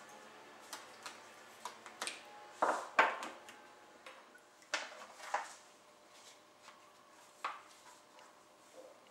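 Scattered clicks and knocks of a metal spoon and a plastic food container being handled, ending with the container's plastic lid being fitted on; the loudest knocks come a little before the middle.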